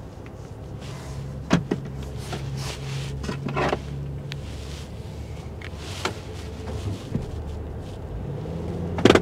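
Car running down the road heard from inside the cabin: a steady low engine and road hum, whose pitch climbs near the end. A few sharp knocks or clicks come at irregular moments, the loudest just before the end.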